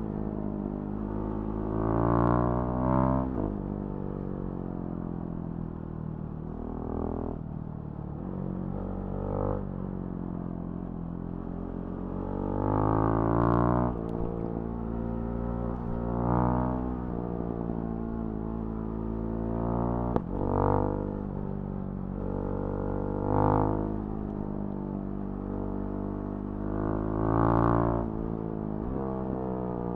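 Husqvarna Svartpilen 701's single-cylinder engine through a Remus NXT exhaust, riding: the revs climb and fall again and again, with about seven louder bursts of throttle over a steady exhaust drone.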